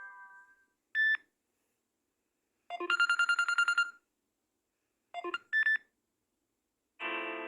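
Samsung Galaxy Note 9 ringtones played one after another as short electronic chimes, separated by silent gaps. A fading melody ends at the start, then comes a single short tone, then a fast trill of about nine beeps a second lasting a little over a second. A few short tones follow, and a fuller sustained tone begins near the end.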